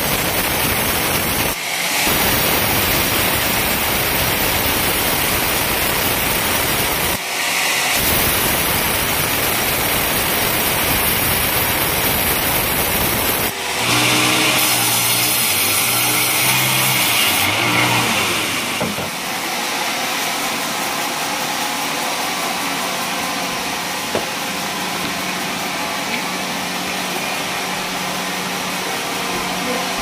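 Band sawmill cutting lengthwise through a coconut-palm log: a loud, steady sawing noise, broken twice by short edit gaps. From about two-thirds of the way in, the sawmill machinery runs with a quieter, steadier hum.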